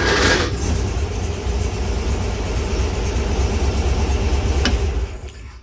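Air-cooled VW flat-four engine of a Meyers Manx dune buggy, just started on its first start: a loud surge as it catches, then steady running that dies down near the end.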